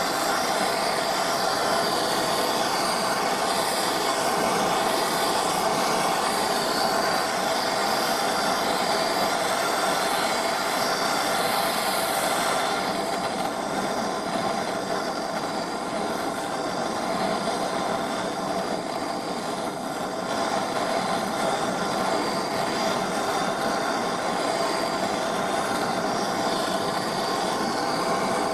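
A workshop machine running steadily, a constant mechanical hum with a hiss. About twelve seconds in, the highest part of the hiss drops away and the sound eases slightly.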